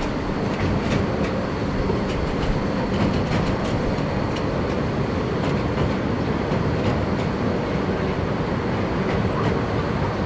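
Porto Metro light-rail train running over the steel deck of a bridge: a steady rolling rumble with repeated clicks of the wheels over rail joints.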